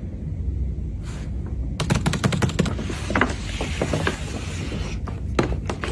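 Cardboard and plastic packaging of a laptop box being handled and opened: a quick run of crackling clicks about two seconds in, then rustling, with a few more clicks near the end over a steady low rumble.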